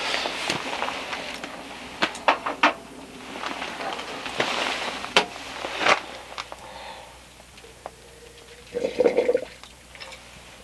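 Hot water poured from a tea kettle into a water bottle in two spells, with sharp clicks and knocks of the kettle and bottle between the pours, and a short clatter near the end.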